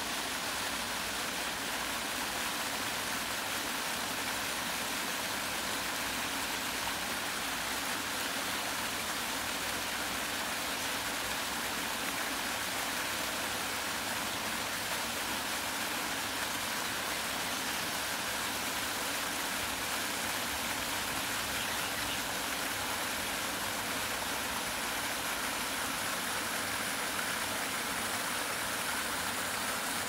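Pond fountain spraying water up and splashing back onto the surface: a steady rushing hiss with no breaks.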